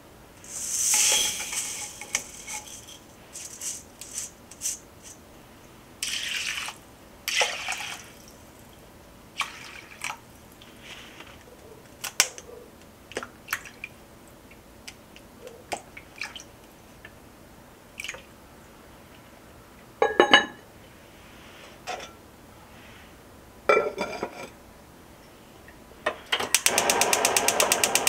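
Cooking sounds at a clay donabe rice pot: rice and liquid poured in, a wooden spoon stirring and scraping, and light clinks of pot and lid. Near the end a gas stove's igniter clicks rapidly for about a second and a half, then the burner lights with a steady hiss.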